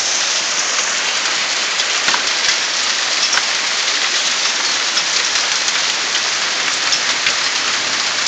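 Hail pelting down hard: a dense, steady hiss of hailstones striking roof and ground, with sharp single ticks of individual stones scattered through it.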